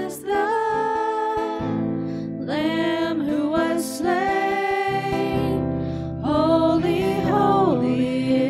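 Live worship song: women's voices singing long held phrases over a strummed acoustic guitar, three sung phrases with short breaks between them.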